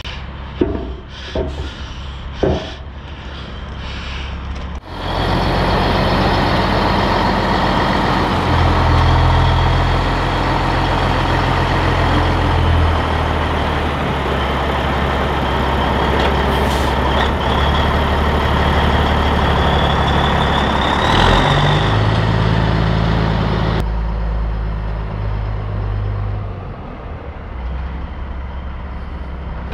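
Heavy diesel truck engine running, its pitch stepping up for a few seconds and back down, with a brief air hiss partway through. It comes in suddenly after a few sharp knocks and drops to a quieter idle near the end.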